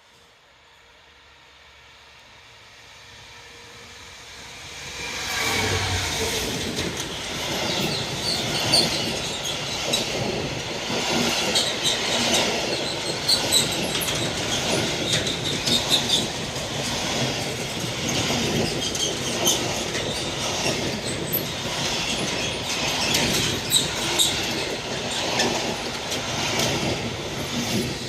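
Class 66 diesel freight locomotive approaching, growing louder over the first five seconds or so, then passing close with its freight train. The wheels keep up a run of sharp clicks and clatter on the rails.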